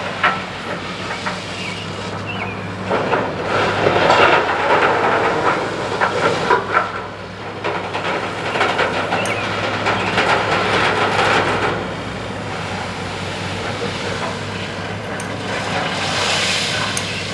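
Side dump ballast gondola's air-operated body tilting back upright: hissing air and rattling ballast, loudest in two stretches through the first two-thirds. A diesel engine runs steadily underneath.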